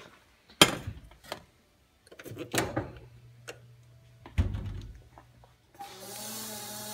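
A handful of knocks and clunks, as of things being handled and set down on a kitchen counter, the deepest one about four seconds in, with a low hum for a couple of seconds; near the end a steady hiss begins.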